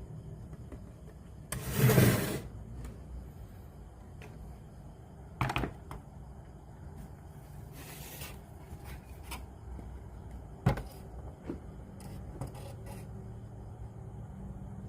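Handling noises during a repair: a second-long scraping rustle, then a few sharp clicks and knocks, over a steady low hum.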